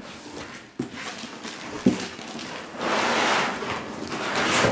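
Cardboard, foam packing inserts and a plastic bag rustling and scraping as a desktop computer is worked out of its box, with a couple of light knocks in the first two seconds and a longer rustle about three seconds in.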